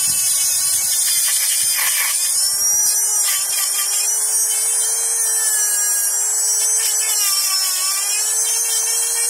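Dremel rotary tool with a double-cut tungsten carbide burr grinding through the hardened steel outer ring of a locking wheel nut: a loud, steady high whine that wavers slightly in pitch as the burr is pressed into the steel.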